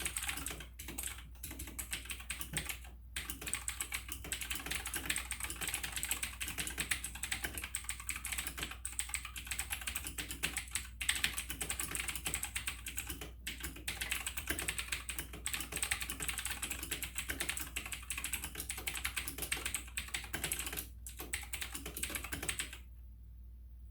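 Fast touch-typing on an AUKEY mechanical keyboard with Outemu blue clicky switches: a dense, rapid stream of sharp key clicks with a few brief pauses, stopping about a second before the end. Really loud.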